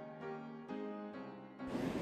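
Quiet background music: a slow melody of held notes, changing every third to half second.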